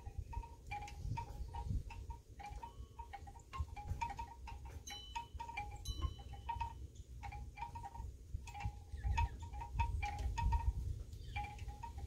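Wind chimes clinking irregularly, the strikes ringing briefly at a few fixed pitches, over a low rumble of wind on the microphone.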